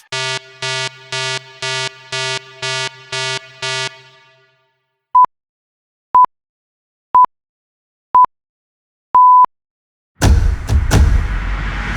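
Three stock sound effects in turn: eight buzzy pulsed tones, about two a second; then five pure beeps a second apart, the last held longer, like a countdown or time signal; then a sudden loud impact with a low rumble about ten seconds in.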